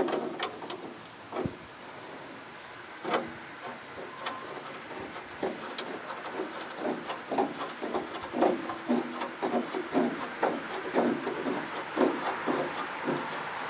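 Hand tools working on a sawmill's blade-wheel hardware: irregular metallic clicks and knocks, a few at first, then several a second from about five seconds in.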